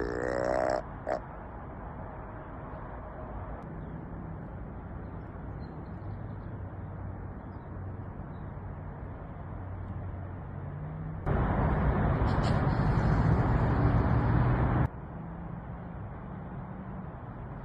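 A short, pitched whitetail deer grunt at the start, with a brief second grunt just after it. About eleven seconds in, a loud rushing hiss lasts about three and a half seconds and then cuts off suddenly.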